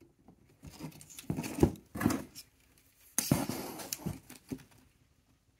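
Handling noise as an M91 Carcano carbine is turned over on its cardboard box: wood and metal knocking and scraping against cardboard, with paper rustling. It comes in two spells of a couple of seconds each.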